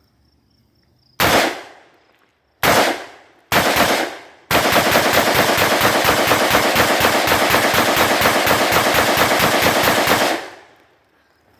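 Rifle firing: three single shots about a second apart, then a long rapid string of shots lasting about six seconds that stops abruptly.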